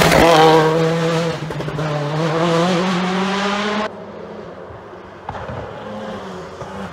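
Rally car engine at full revs passing close, its note dipping as it goes by and then climbing as it accelerates away. About four seconds in the sound cuts abruptly to a second rally car's engine, quieter and heard from farther off.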